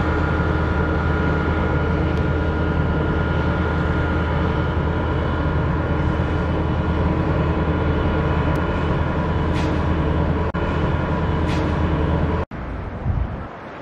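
Diesel engine of a KLW SE15B locomotive running steadily as it leads a rail train, a strong low hum. It cuts off abruptly about twelve seconds in, leaving fainter wind noise.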